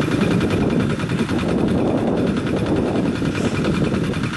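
Wind buffeting the microphone: a loud, continuous, uneven low rumble.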